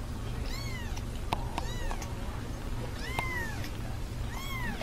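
A kitten mewing: about four short, high-pitched mews, each rising and falling in pitch, over a steady low hum.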